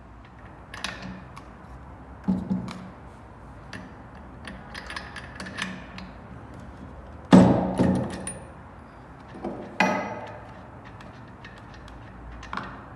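Hand tools clicking and clinking against metal as the spark plug is unscrewed and taken out of a chainsaw engine. There are scattered small clicks and a few sharper metallic knocks, the loudest about seven seconds in and another near ten seconds.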